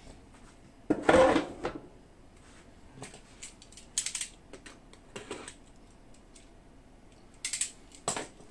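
Scattered clicks, taps and rustles of a model ship kit's parts and packaging being handled in an opened box, the loudest about a second in.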